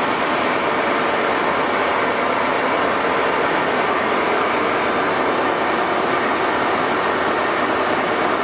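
Siemens Charger diesel-electric locomotive idling at a standstill: a steady, unbroken engine and fan noise.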